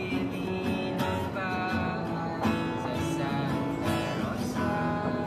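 Background music led by strummed acoustic guitar with a steady rhythm.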